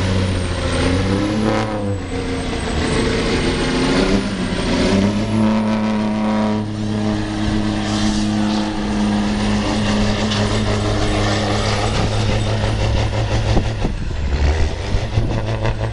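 A semi-truck's diesel engine under full load pulling a weighted sled: it revs up, rising in pitch over the first couple of seconds, then holds a steady high note for several seconds before turning rougher near the end.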